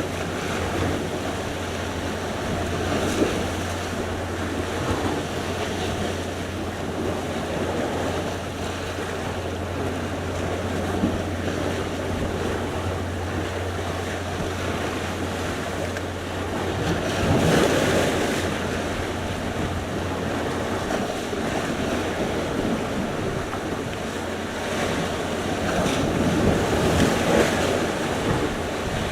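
Sea surf: waves breaking and washing up the shore in a continuous rush. The rush swells and falls, with the loudest wave about two-thirds of the way through, over a steady low rumble.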